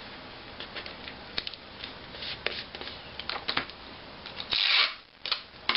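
Sheets of paper being handled and pressed, with light crinkles and taps, then a strip of tape pulled off its roll with a short loud rasp near the end, followed by a couple of sharp clicks.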